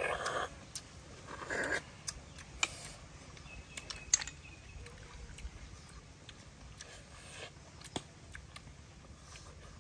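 Cooked snails being sucked and slurped from their shells, two short slurps in the first two seconds, with scattered small clicks of snail shells tapping together in a plastic basket, the sharpest about four seconds in.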